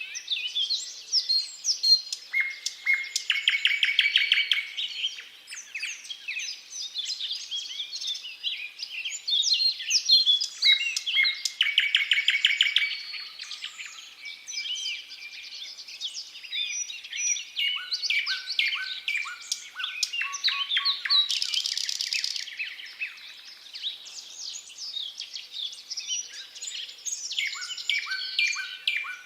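Thrush nightingale singing loudly in separate, varied phrases with short pauses between them. Some phrases are fast series of repeated notes.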